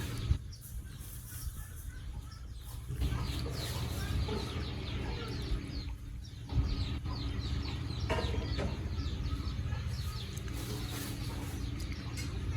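Birds chirping over a steady low rumble, with a couple of brief knocks.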